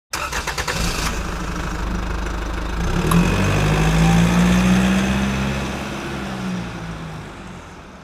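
Car engine starting: the starter cranks for about a second before the engine catches, then it revs up around three seconds in and settles as the sound fades out.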